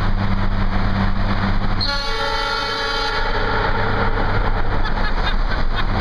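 Two horns of a Nathan triple-tone train horn mounted on a car, sounding together as a chord in one blast of about a second and a half starting about two seconds in, ringing on and dying away in the tunnel's echo. The car's engine and road noise drone underneath.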